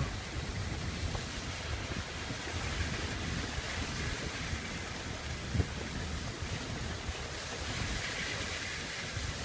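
Wind rushing and buffeting the camera's microphone: a steady rumbling hiss, with one brief low thump about five and a half seconds in.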